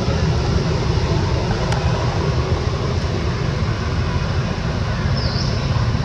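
A steady, loud, rumbling noise with a hiss above it, and a short high chirp about five seconds in.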